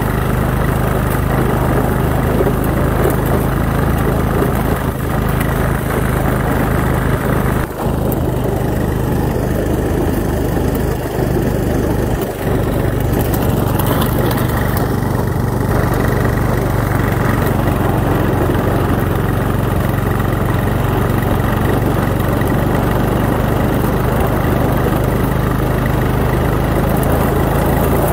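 ATV engine running at a steady speed while under way, a constant low drone with no change in pitch.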